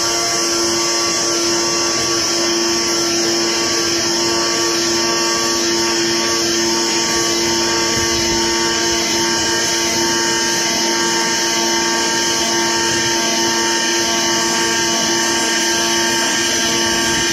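AOKE CNC flatbed cutting plotter running while its tool head cuts and creases a sheet of corrugated cardboard: a loud, steady hum with a high hiss and no breaks, typical of the vacuum hold-down table running under the moving gantry.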